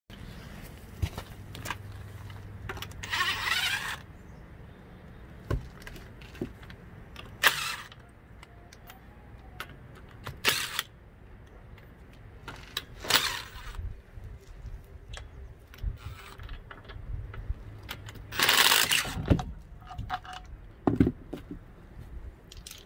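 Cordless impact wrench hammering in five short bursts as it spins the lug nuts off a car wheel, the last burst the longest, with small clicks and handling noises between. A sharp knock comes near the end.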